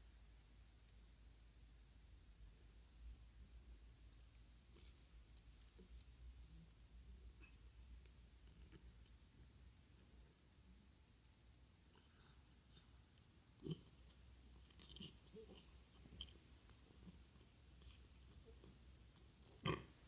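Faint small sounds of stray kittens eating from a paper plate and moving about, near silence over a steady high-pitched hum. Two sharper knocks come about two-thirds of the way through and near the end.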